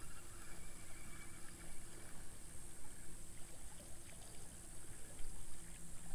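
Faint water lapping and trickling around a kayak, over a steady high-pitched hiss.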